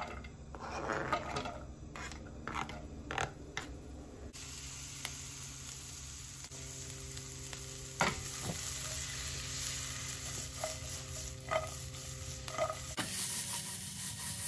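Chopped red onion scraped with a knife off a cutting board into a nonstick frying pan, with soft scraping and clatter, then the onions sizzling steadily in the hot pan from about four seconds in, with small pops and taps. Near the end the pan is shaken to toss them.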